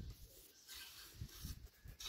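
Faint scrape of a tool working wet cement mortar, lasting about half a second, beginning just under a second in.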